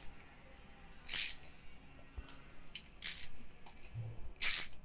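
Hand socket ratchet winding ARP connecting-rod cap bolts into an engine block: short bursts of fast pawl clicking on each back-swing of the handle. The three loudest bursts come at about one second, three seconds and near the end.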